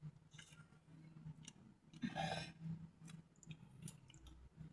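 Faint close-up chewing with small mouth clicks, a brief soft burst of noise about two seconds in, over a low steady hum.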